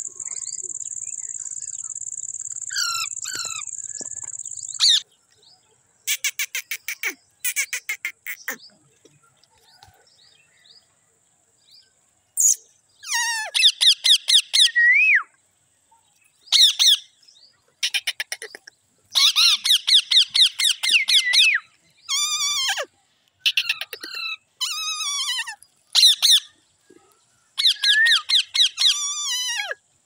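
Parakeets calling in repeated bursts of rapid, trilling chatter and squawks, denser and louder from about halfway through. A steady high buzz runs for the first five seconds or so and then stops.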